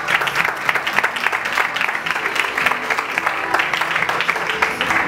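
Applause: many hands clapping in a dense, steady patter, with music playing underneath.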